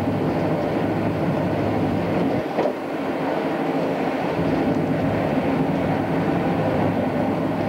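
Passenger train running at speed, heard from inside the carriage: a steady rumble of wheels on the track, briefly dipping about two and a half seconds in.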